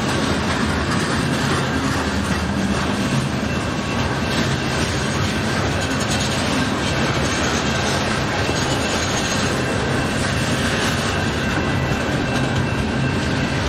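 Union Pacific freight train rolling past, a steady sound of railcars in motion with light clicking of steel wheels over rail joints.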